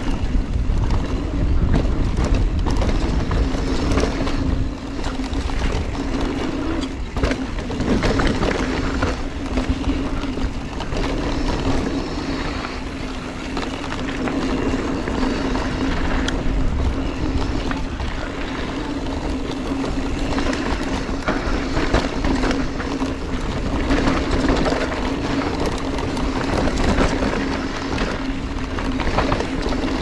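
Giant Trance full-suspension mountain bike descending a dirt trail at speed: wind rushing over the camera mic and knobby tyres rumbling over the dirt, with a steady hum and frequent short knocks and rattles as the bike hits bumps and roots.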